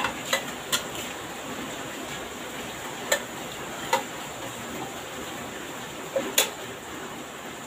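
Metal spoon clinking against a ceramic plate while scooping up rice: a scattering of short, sharp clicks, several in quick succession at the start and again near the end.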